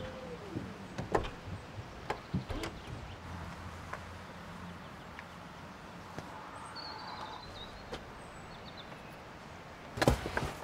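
Škoda Superb Combi's electric tailgate: the motor's steady hum stops right at the start, and the tailgate shuts and latches with several sharp clicks and knocks. About ten seconds in comes a loud quick cluster of clicks and rustling as a backpack is hung on a boot hook.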